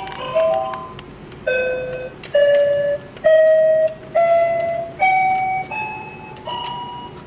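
Toy robot's electronic keypad playing one note per button press, stepping up a scale: seven notes about a second apart, each a little higher. It starts with the tail of a short, fast electronic jingle.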